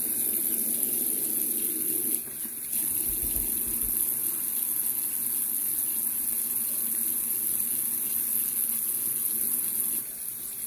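Bathroom sink tap running steadily, water hissing into the basin. The flow dips briefly about two seconds in and again near the end.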